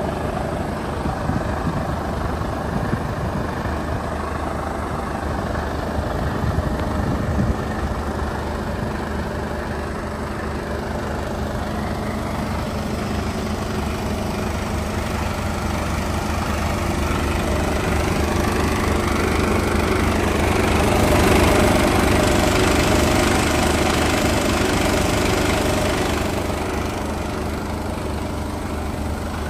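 Mercedes-Benz Actros 1842 truck's diesel engine idling steadily with a low hum. About halfway through the sound grows louder and brighter, then settles back near the end.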